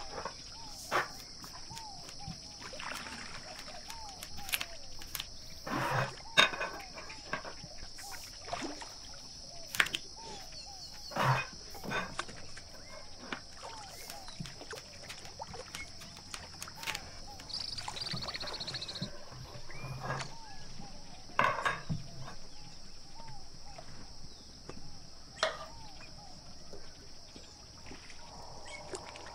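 Scattered sharp knocks and rubbing as a long thin wooden rolling pin is handled and rolled on a wooden table with a thin dough sheet, and a spoon drops meat filling near the end. Behind them run a steady high insect drone and repeated small chirping calls.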